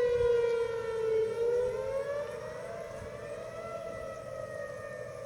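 Outdoor tornado warning siren wailing: its pitch sags a little, then rises about a second and a half in and holds steady. The siren is sounding a tornado warning.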